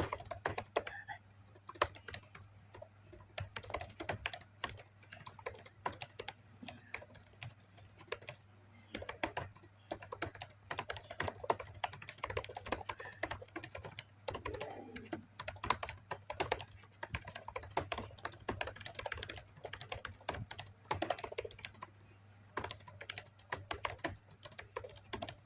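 Fast typing on a computer keyboard: a dense, irregular stream of keystroke clicks with a few brief pauses, over a low steady hum.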